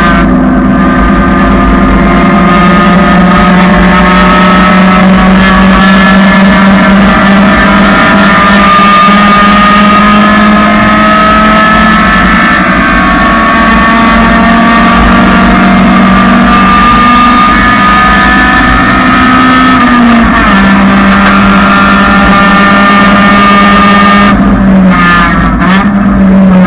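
1999 Honda Civic engine running hard under load, very loud. Its pitch climbs slowly through long pulls and drops sharply a little past two-thirds of the way in and again near the end, where the revs fall.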